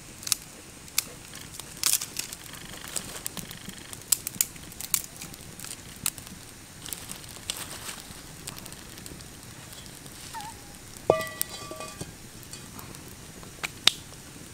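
Wood campfire crackling, with irregular sharp pops and snaps from the burning sticks. A brief pitched call cuts in about two-thirds of the way through.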